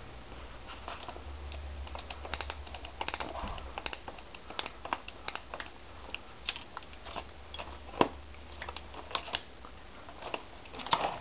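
Manual combination strapping tool for polypropylene strap being worked by hand as the strap is threaded and tensioned: a run of sharp, irregular metal clicks and clacks from the tool's mechanism.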